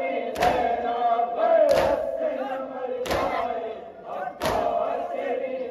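A crowd of Shia mourners beating their chests in unison (matam): four loud slaps, evenly spaced about one and a half seconds apart, over a crowd chanting a mourning lament.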